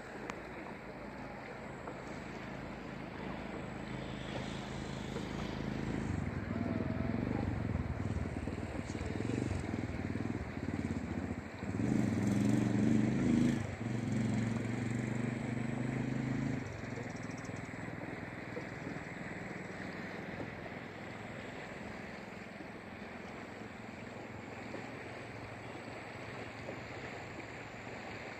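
Boat engine running at a steady pitch over a wash of wind and moving river water. The engine grows louder toward the middle and drops away suddenly about two-thirds of the way through, leaving only the wind and water.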